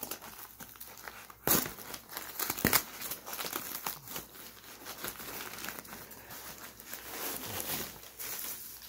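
Packing being unwrapped by hand: blue tape peeling off a foam wrap and crumpled newspaper crinkling, with two sharper rips about one and a half and nearly three seconds in.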